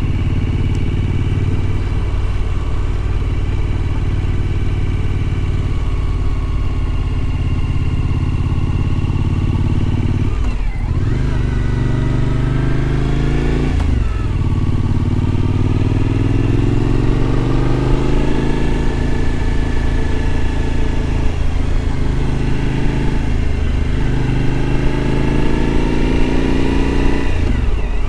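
Suzuki V-Strom motorcycle's V-twin engine running under way, its pitch climbing as it accelerates and dropping briefly at several gear changes or throttle lifts.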